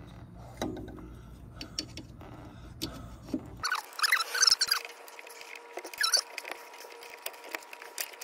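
Scattered clicks and metallic clinks of hand tools and small hardware being handled, with a cluster of short, sharp squeaks and rattles about four seconds in and again about six seconds in.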